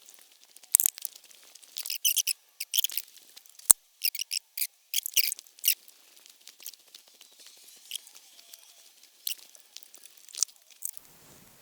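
Irregular scratchy, crackling handling noises, with one sharp click nearly four seconds in.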